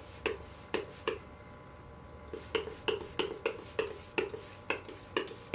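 Makeup setting spray being pumped rapidly at the face: a quick series of short spritzing clicks, about three or four a second. The clicks pause about a second in, then resume.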